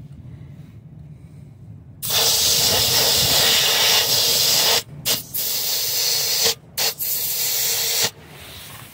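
Air hissing out of a truck tire valve through a dial tire-pressure gauge as air is let off the tire. It starts about two seconds in, runs for about six seconds with a few brief cut-offs, and stops about a second before the end.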